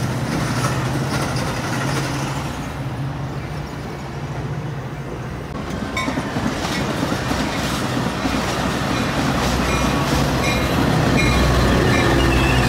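Metra commuter train rolling past with a steady low rumble. After a break, a Metra diesel locomotive approaches and passes close by, its rumble growing louder, with wheels clacking on the rail joints and some high squeals near the end.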